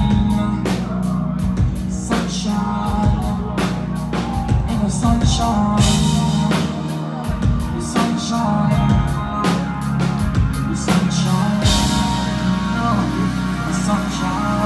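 Loud live concert music over a PA: a heavy bass line and a pounding drum beat with vocals. About twelve seconds in the drums drop out and a held bass carries on.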